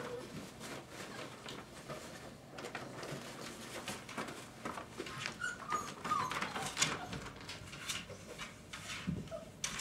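Five-week-old Dogo Argentino puppies whimpering with a few short high squeaks about halfway through, over scuffling and small clicks as they move about.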